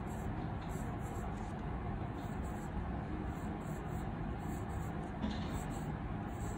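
Graphite pencil scratching on paper in short, irregular strokes, over a steady background hiss.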